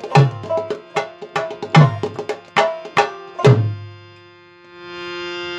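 Bangla dhol played in a quick rhythm that mixes deep bass strokes with sharper, ringing higher strokes. The rhythm ends on a final stroke about two-thirds of the way through. Near the end a steady held tone with many overtones swells in.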